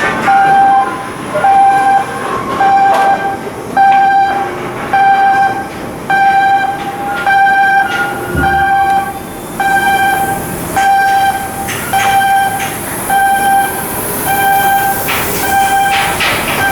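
Electronic warning beeper sounding a steady single-pitched beep over and over, a little slower than once a second, with scattered metallic knocks of work beneath it.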